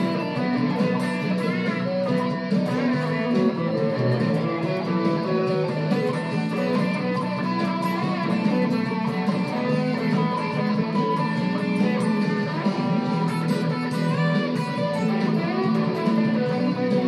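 Stratocaster-style electric guitar played continuously, a steady run of picked notes and chords.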